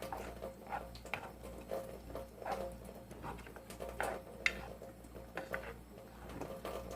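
Kitchen utensils and cookware clinking and knocking: a string of light, irregular taps against pots and dishes, over a faint steady hum.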